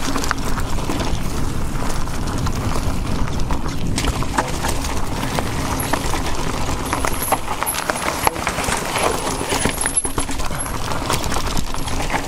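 Electric mountain bike clattering and rattling over a rough forest trail, with many irregular knocks over a steady low rumble of wind and tyre noise.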